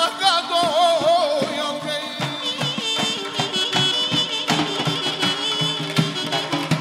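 Azerbaijani folk ensemble music: a sung phrase falls and ends about a second and a half in, then the band plays on with a large double-headed drum beaten by hand, a pair of small drums played with sticks, and a wind instrument carrying the melody over a steady, quick beat.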